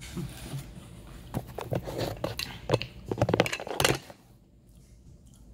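Handling noise close to the microphone: a quick run of clicks, knocks and rustles as the camera or phone is bumped and moved. It stops abruptly about four seconds in, leaving a quiet room hum.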